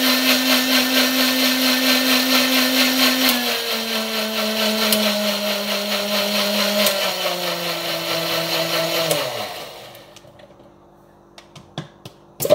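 Small electric countertop blender running, blending a liquid garlic, olive oil and lemon dressing. Its motor whine steps down in pitch twice, then winds down and stops about nine and a half seconds in. A few light clicks follow near the end.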